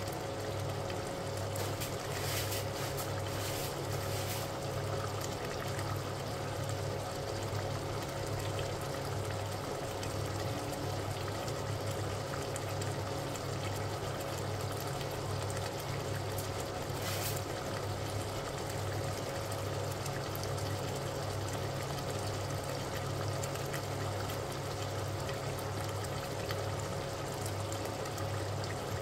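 Meat and masala simmering in a stainless-steel pot on the hob, a steady bubbling sizzle. Underneath, a low hum pulses about once a second, and there are a few faint clicks.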